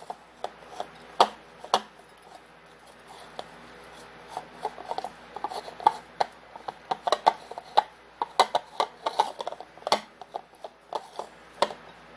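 A spoon mixing a thick cheese filling in a bowl, stirring and scraping, with many irregular taps and clinks against the bowl.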